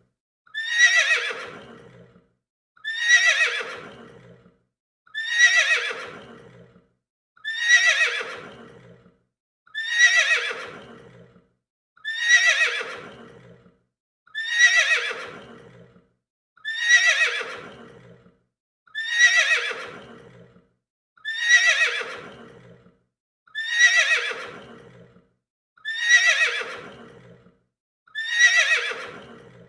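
Horse neighing: the same whinny repeated about every two seconds, each call starting high and falling in pitch as it fades away.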